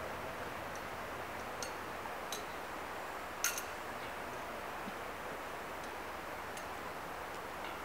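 Steady outdoor background hiss with a few short, sharp ticks scattered through it, the loudest about three and a half seconds in.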